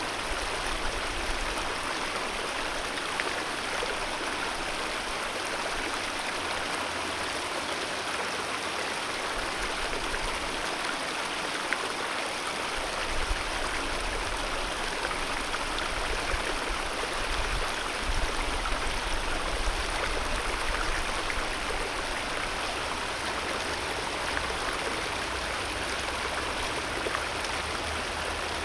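Alpine mountain river flowing: a steady rush of water.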